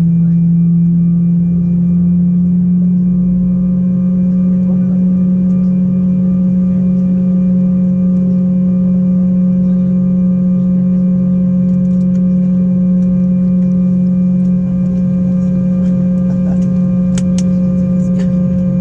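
Steady drone inside the cabin of an Embraer 190 as it is pushed back: a low hum with a few steady tones above it, and a few faint clicks near the end.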